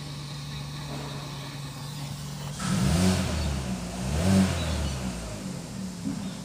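Holden Cruze 1.8-litre four-cylinder petrol engine idling, heard from inside the cabin, then revved twice, rising and falling about two and a half seconds in and again about a second later, before settling back to a steady idle.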